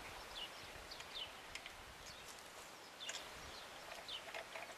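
Birds chirping in the background: short, downward-sliding chirps, several a second, with a couple of faint clicks.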